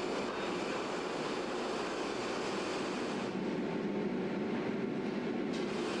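Kara circular sawmill line running: a steady mechanical din of the saw and conveyors. About three seconds in a higher whine joins it, and there is a sharp tick near the end.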